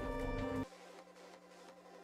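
Background music of steady held tones that drops suddenly in level about two thirds of a second in, continuing faint and thin with its low end gone.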